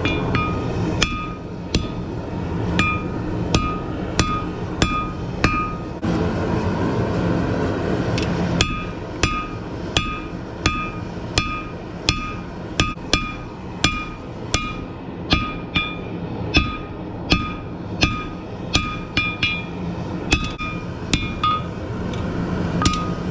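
Hammer blows on hot rebar over an anvil while forging out a knife's edge: a steady run of ringing metal strikes, a little more than one a second, with a short pause about six seconds in. A steady low rumble sits underneath.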